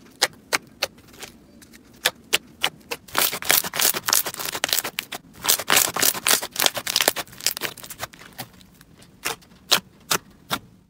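Fingers pressing and squeezing thick white fluffy slime, its trapped air bubbles popping in a run of irregular crackling clicks, thickest in the middle and thinning out near the end.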